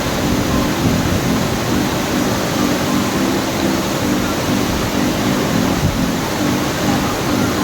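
Waterfall's rushing water: a loud, steady noise with no breaks.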